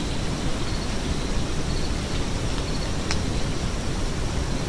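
Wind buffeting the camera microphone: a steady, uneven low rumble, with a faint sharp tick about three seconds in.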